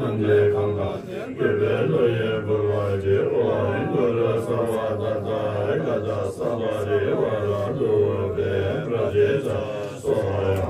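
Several Tibetan Buddhist monks chanting a prayer together, a continuous group recitation in low voices.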